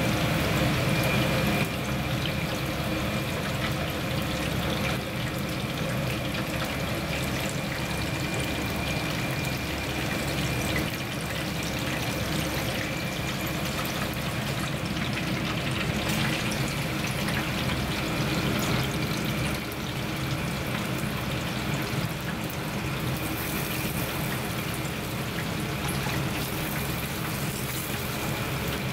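Pieces of grouper deep-frying in hot oil: a steady bubbling sizzle, with a faint high tone over roughly the first dozen seconds.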